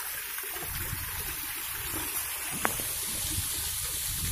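Steady rush of flowing river water trickling into a pool, with one short click about two-thirds of the way through.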